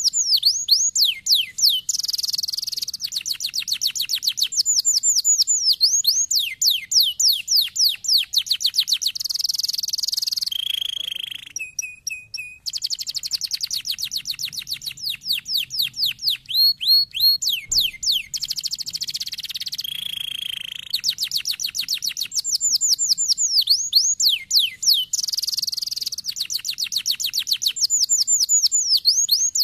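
Domestic canary singing a long, continuous song of fast trills and repeated falling notes, changing phrase every second or two, with two short breaks.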